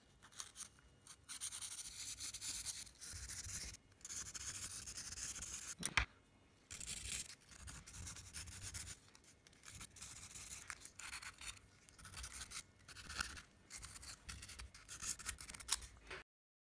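Small composite brackets being hand-sanded with a scrap of sandpaper: quick scratchy rubbing strokes in runs of a few seconds with short pauses, roughening the surfaces before gluing. A light click about six seconds in, and the sound cuts off suddenly near the end.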